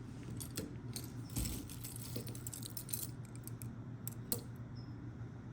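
Small metal costume jewelry pieces clinking and jangling as they are handled and sorted: a scatter of light clicks, with one sharper click about four seconds in.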